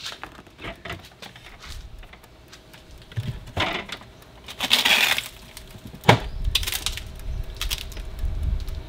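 Objects being handled and set down: scattered knocks and clicks with short rustling or scraping, and a sharp knock about six seconds in.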